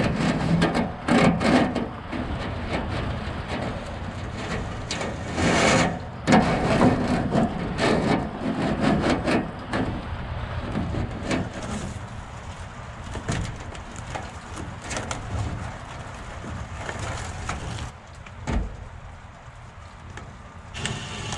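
Black tape being pulled from the roll and wrapped around the bathroom exhaust fan's duct joint, with irregular rustling, rubbing and small knocks of handling.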